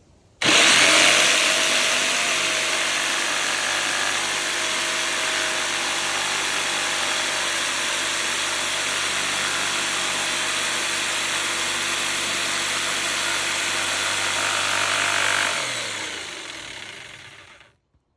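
Electric jigsaw cutting through a board. The motor starts abruptly, runs steadily for about fifteen seconds, then winds down and stops near the end.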